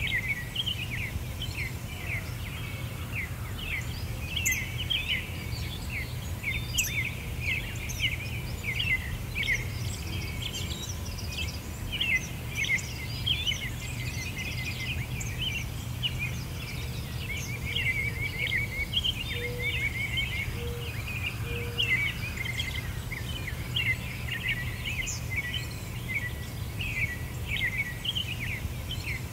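Many small birds chirping and calling continuously in a dense chorus of quick high chirps, over a steady low background rumble.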